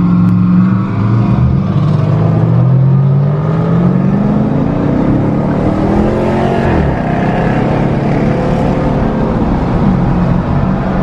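Car engine running at a steady idle, then revved slowly higher for several seconds before the pitch drops sharply back about seven seconds in, with another brief dip near the end.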